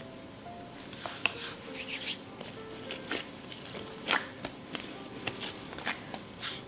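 Hands kneading a sticky sourdough rye-and-wheat dough on a floured mat: irregular soft slaps and sticky smacks of the dough being pressed and turned. Quiet background music plays underneath.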